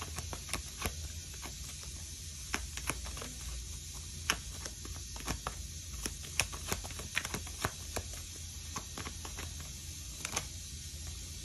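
Scattered light clicks and taps at an irregular pace, a few of them sharper than the rest, over a steady low hum and hiss.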